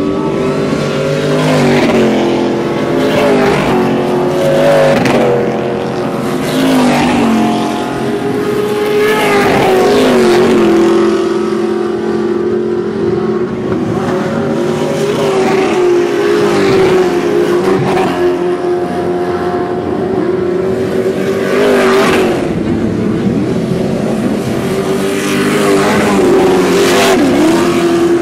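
Several off-road race vehicles running on a dirt short-course track, their engines revving up and down as they accelerate and pass close by one after another.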